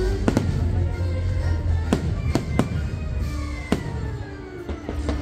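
Aerial fireworks shells bursting with about six sharp bangs, two of them close together near the start. Under them the show's music soundtrack plays with heavy bass.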